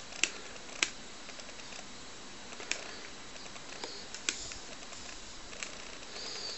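A handful of short sharp clicks, about six spread over several seconds, from buttons being pressed on a TV remote control, over a steady hiss.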